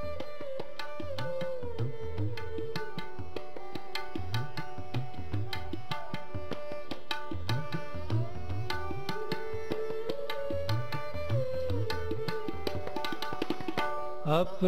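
Instrumental interlude of Sikh kirtan: tabla playing a busy, steady rhythm, the low drum's strokes rising in pitch, under a held harmonium melody that steps up and down. The lead singer's voice comes back in right at the end.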